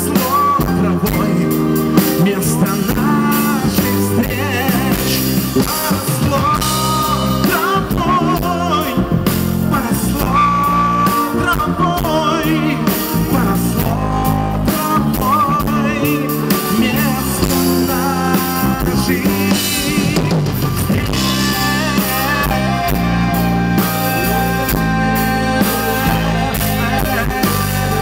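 Pop-rock band playing live through a stage sound system: electric guitars, bass guitar, keyboard and a drum kit keeping a steady beat.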